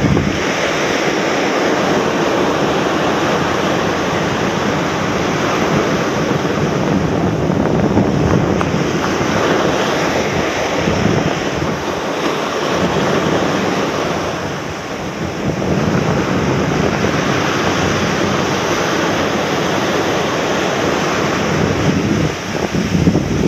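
Ocean surf breaking and washing up a sandy beach, with wind buffeting the microphone. The wash swells and eases, with a brief lull about two-thirds of the way through.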